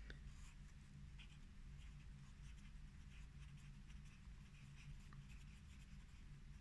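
Faint scratching of a pencil writing on notebook paper, in short irregular strokes.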